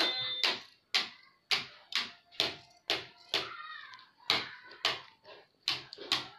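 Large scissors cutting through black pajama fabric in quick, repeated snips, about two a second, as long strips are cut.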